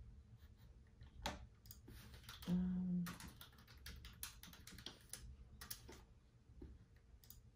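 Typing on a computer keyboard: scattered, irregular key clicks. About two and a half seconds in comes a brief, steady low hum, the loudest sound here.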